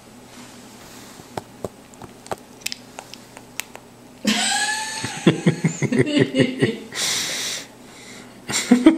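Sleeping newborn's own small noises: faint clicks of sucking on a pacifier, then, about four seconds in, a short squeaky whimper followed by a run of little grunts, and sniffly breaths near the end.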